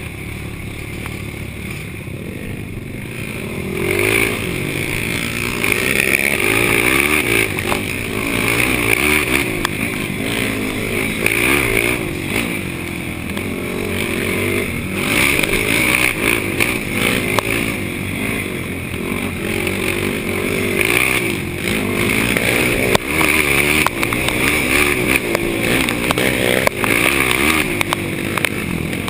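Yamaha YFZ450 ATV's single-cylinder four-stroke engine racing cross-country, its pitch rising and falling again and again as the rider works the throttle through the gears. It grows louder about four seconds in, with wind noise and scattered knocks from the rough ground.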